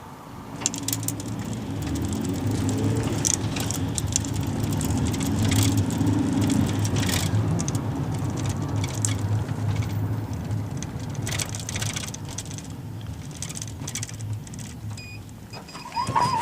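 Route minibus engine running and pulling away, its note rising over the first few seconds, with rattles and clicks. Short electronic beeps come in near the end.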